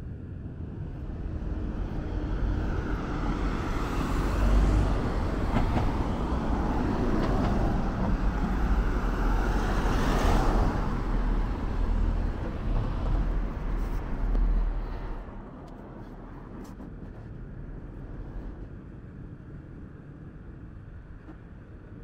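Road traffic passing close, with a deep engine rumble that builds over the first few seconds, is loudest about ten seconds in, and drops away suddenly about fifteen seconds in, leaving a quieter steady city hum.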